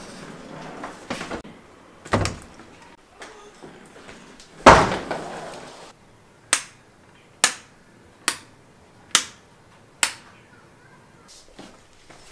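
A thump, then a door shutting loudly, then a wall light switch clicked five times, about one click a second.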